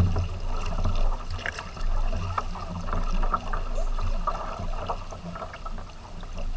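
Water splashing and sloshing along a tandem kayak's hull as it is paddled, with irregular paddle splashes over a steady low rumble.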